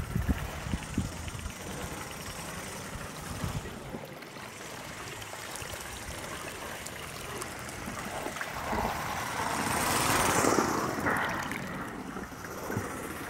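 Gauge 1 live steam tank loco running on the garden track, hissing steam and gurgling, swelling louder as it passes close about ten seconds in.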